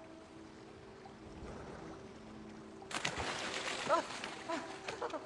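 Soft sustained music notes, then about three seconds in a sudden rush of splashing water lasting about two seconds, with a man's short "ah, ah" cries over it.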